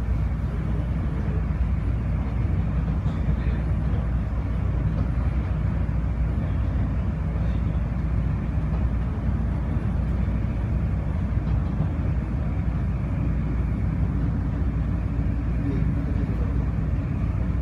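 Steady low rumble and hiss inside a car of the Incheon Airport maglev train as it runs along its elevated guideway.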